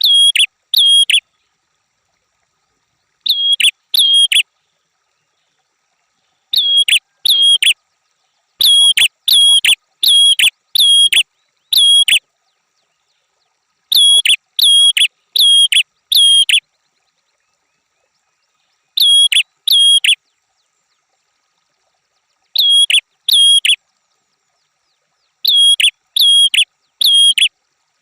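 Red-headed prenjak calling: sharp, loud chirps repeated in quick groups of two to five, with silent gaps of one to three seconds between the groups.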